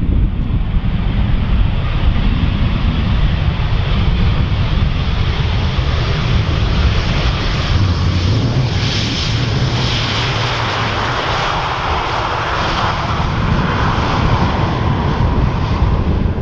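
Airbus A320-family airliner's jet engines: a loud, steady rumble whose roar grows brighter and fuller over the second half as the jet comes past.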